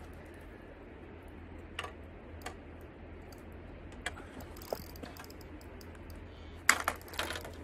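Scattered light clicks and knocks of fishing tackle being handled while a fish is brought in to the landing net, with a louder quick cluster of clicks near the end.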